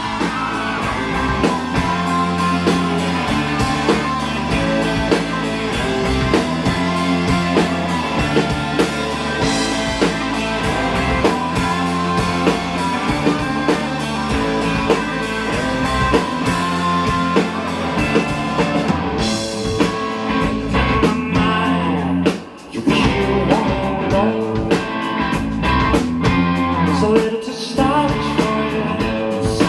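Live rock band playing, with guitar and drum kit, cutting out briefly about two thirds of the way through before coming back in.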